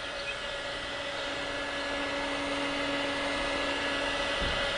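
Electric heat gun running steadily, its fan motor humming under the rush of blown air as it heats a plastic orthotic to soften it for remolding. A second, lower hum joins about a second in, and the sound grows slightly louder.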